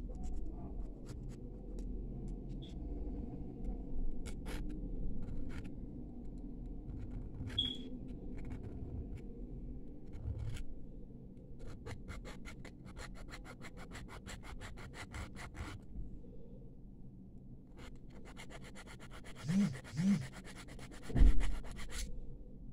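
Small needle file scraping the cut end of a brass bangle, deburring its edges: scattered scrapes at first, then two runs of quick, even back-and-forth strokes. A low thump near the end.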